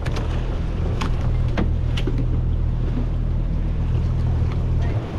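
Boat engine idling with a steady low hum, with wind on the microphone and a few sharp knocks about one, one and a half and two seconds in.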